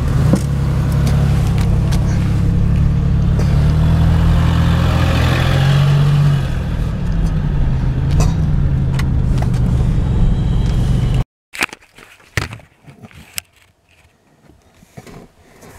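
Loud, steady vehicle engine and road rumble whose pitch rises and falls a little in the middle. It cuts off suddenly about eleven seconds in, and a few quiet clicks and knocks follow.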